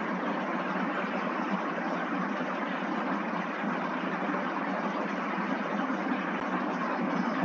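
Steady, even hiss-like background noise with no pitch or rhythm, unchanging throughout.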